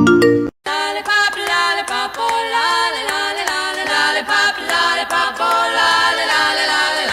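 Music: a few bright struck notes, a short break just over half a second in, then a sung passage over a dense run of chords.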